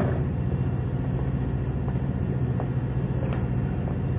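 Diesel locomotive engine idling while stopped at a station platform: a steady low drone.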